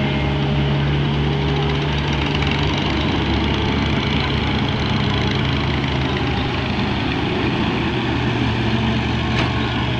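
Diesel engine of a Volvo EW130 wheeled excavator running steadily as it digs and swings, an even low drone throughout.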